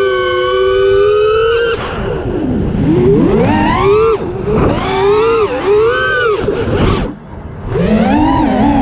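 Brushless motors and tri-blade propellers of a 5-inch FPV racing quadcopter (Cobra Champion 2207 2450kv motors, DAL Cyclone T5045C props), heard from its onboard camera: a loud, high whine that holds steady at first, then swoops up and down in pitch with the throttle. About seven seconds in it drops away briefly, then climbs back up.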